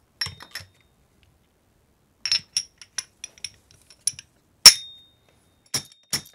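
Motorcycle fork seal driver, a metal slide hammer on the chrome fork stanchion, tapping the new fork seal down into the fork leg. It makes a string of sharp metallic clinks, some with a ringing note, and the hardest blow comes about two-thirds of the way through.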